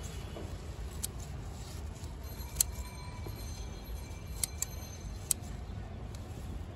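Scissors snipping through coriander stems: about five short, sharp metallic clicks spaced a second or two apart, over a steady low outdoor rumble.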